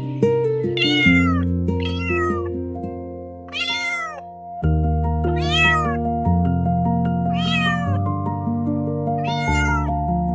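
A cat meowing about six times, each meow rising briefly and then falling, spaced one to two seconds apart, over steady background music.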